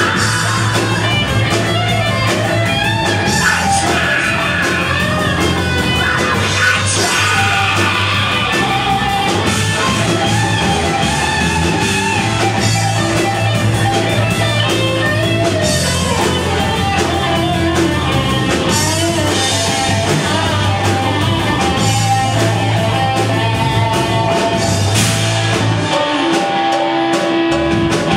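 Live rock band playing loud and steady, with distorted electric guitars, bass, a drum kit and a lead vocal.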